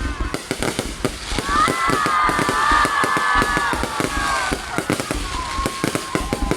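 Fireworks going off: a dense run of rapid crackling pops and bangs, with several high whistling tones overlapping from about a second and a half to four and a half seconds in.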